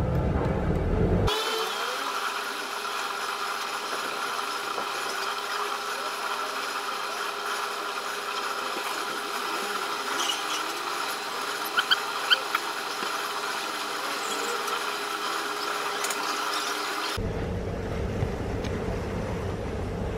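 A steady mechanical hum with several fixed tones, and a few short, sharp high chirps about twelve seconds in.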